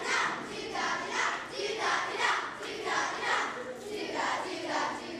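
A crowd of children's voices cheering and shouting together in repeated loud bursts, about once a second.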